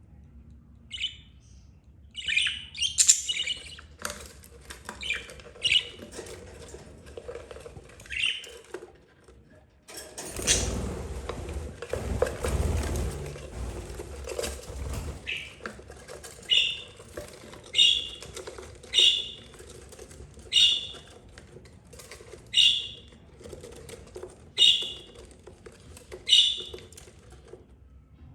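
Budgerigars chirping in short, sharp calls. About a third of the way in comes a few seconds of fluttering wings, and after it a run of single chirps, one every second or two.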